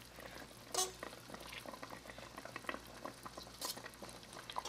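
Beef broth simmering in a pot: faint bubbling with many small pops. A few sharp clicks of a utensil against the pot come about a second in and near the end as the meat is fished out.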